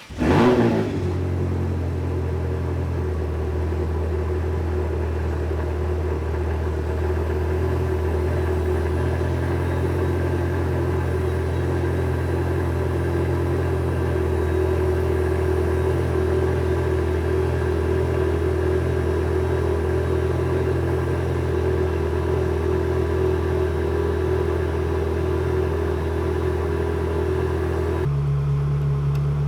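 Ferrari 360 Spider's 3.6-litre V8 starting with a brief rev flare, then idling steadily; the idle note changes near the end.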